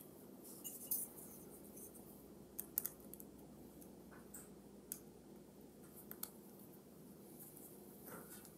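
Faint scattered metal clicks and light scraping as the threaded retaining ring is fitted and started by hand into the metal body of an Edison phonograph reproducer.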